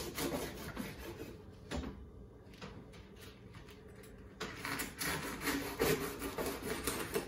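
Chef's knife sawing through the tough top of a globe artichoke on a plastic cutting board: repeated rasping strokes, weaker in the middle and stronger again about halfway through.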